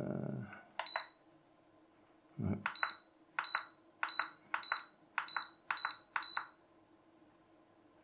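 Hobby RC battery charger beeping at each button press as its program menu is stepped through: eight short clicks, each with a brief high beep, one about a second in and then seven in a quick run about every two-thirds of a second.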